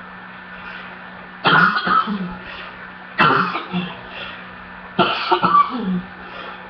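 A person coughing in three fits, each a cluster of two or three harsh coughs that start sharply, about every second and a half to two seconds.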